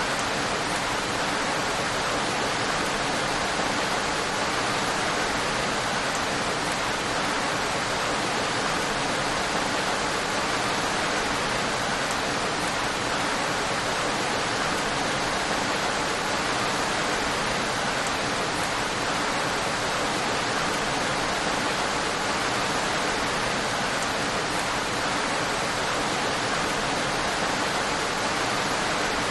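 Steady rain, an even hiss without breaks.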